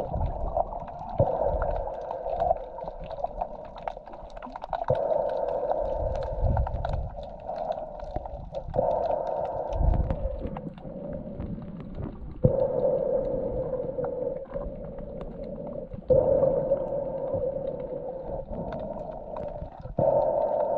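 Muffled underwater water noise around a snorkelling swimmer, heard from below the surface through a waterproof housing. It is a dull rushing that comes in sharply every three to four seconds and then fades, with scattered faint clicks.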